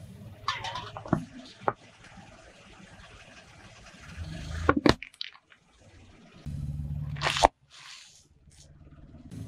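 Car tyre rolling onto an aluminium soda can and crushing it, the can bursting with a sharp crack about five seconds in and fizzy liquid spurting out. Then another tyre crush with a low rumble ends in a second loud crack as a wrapped candy bar is flattened.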